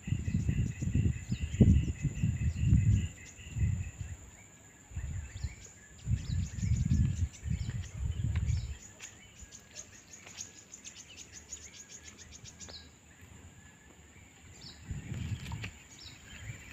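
Rural outdoor ambience: a steady high insect drone with many scattered short chirps. Repeated low rumbles on the microphone come through the first half and return near the end.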